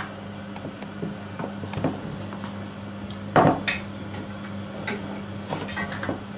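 Kitchen knife cutting pork fat into chunks on a wooden cutting board: irregular knocks of the blade hitting the board, the loudest about three and a half seconds in.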